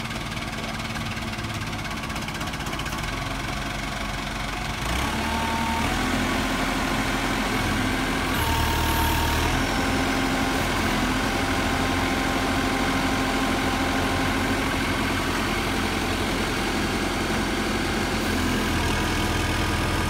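JCB 214 backhoe's diesel engine running steadily, picking up and running louder about five seconds in as the backhoe's hydraulic boom and dipper are worked.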